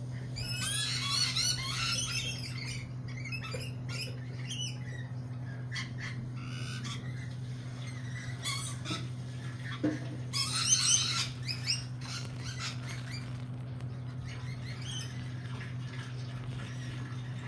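Lorikeets screeching and chattering in two dense bursts, about a second in and again around ten seconds, with scattered single calls between, over a steady low hum.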